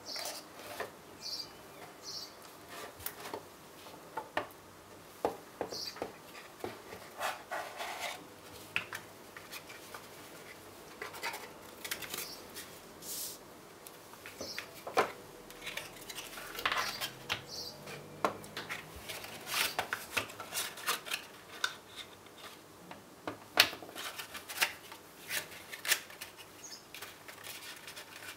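Hands handling a small cardboard box and its inserts: cardboard sliding and scraping, with irregular light taps and clicks as pieces are lifted out and set down on a wooden table.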